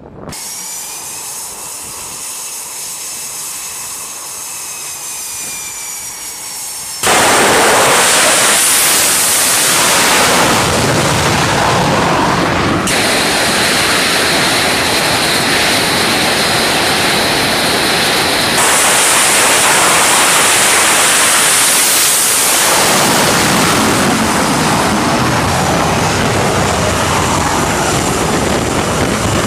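Carrier jet aircraft engines on a flight deck. First a high turbine whine, then about seven seconds in a sudden, loud, steady jet noise of engines at full power for catapult launches, with abrupt shifts where clips are spliced together.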